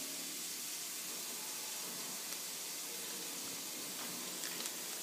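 Steady low hiss of room tone, with a few faint light clicks near the end.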